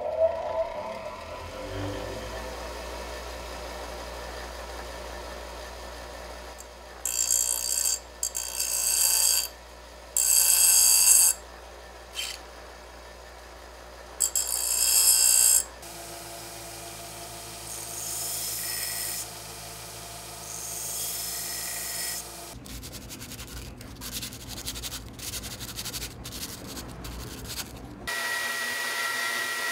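Bench grinder running with a steady low hum after winding up to speed near the start. From about seven seconds in, a TIG tungsten electrode is pressed against the wheel in several short, high-pitched grinding passes over about eight seconds.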